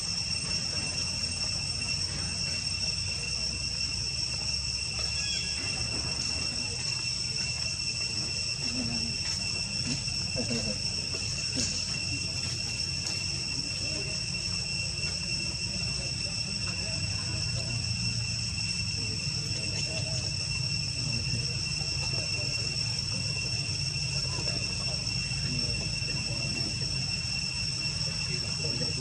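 A steady chorus of insects: an unbroken, shrill two-pitched whine, over a constant low rumble.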